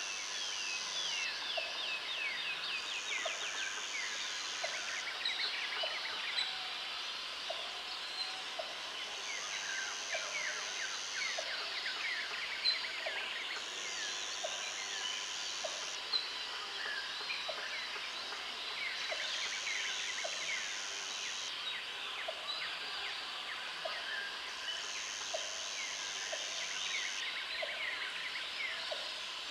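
Tropical jungle ambience: dense, overlapping bird calls, many of them quick falling whistles, over a high insect buzz that switches on for a couple of seconds and off again throughout. Underneath, a short low call repeats about once a second.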